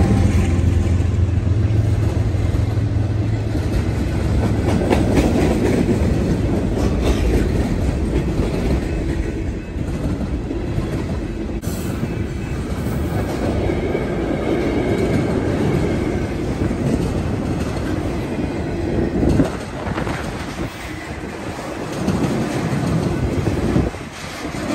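Freight cars of a passing Union Pacific train rolling by close at hand, their steel wheels clacking over the rail joints. A low diesel locomotive drone fades out over the first few seconds.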